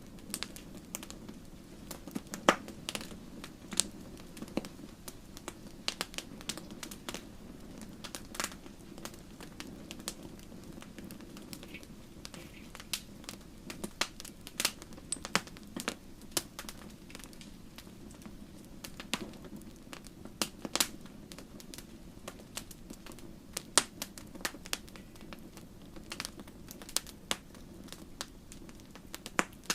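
Wood fire burning in a fireplace: irregular sharp crackles and pops, several a second at times, over a steady low rumble of the flames.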